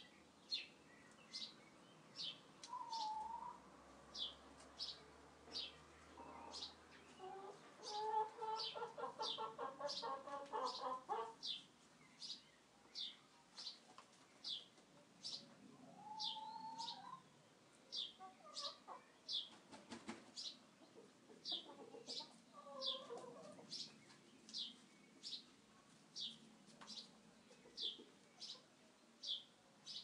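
A small bird chirping over and over, each chirp a short high falling note, about once a second throughout. Under it chickens cluck now and then, with a run of rapid hen clucking about eight to eleven seconds in.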